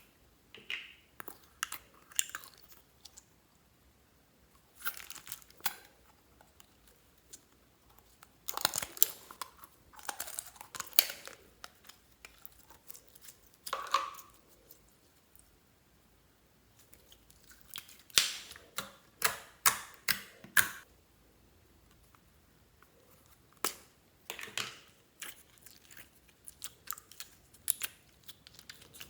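Store-bought slime being mixed by hand, giving irregular clusters of crackles and pops separated by quiet gaps.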